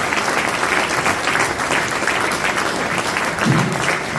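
Audience applauding steadily after a speech, the many overlapping claps forming a dense, even patter. A brief low sound stands out about three and a half seconds in.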